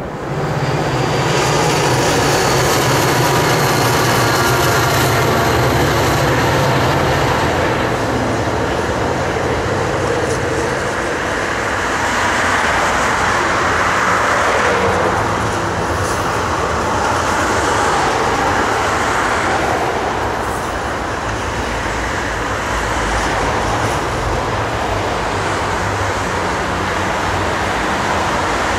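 Freight train of highway trailers on flatcars rolling past with a steady rumble of wheels on rail, and a low hum in roughly the first eight seconds.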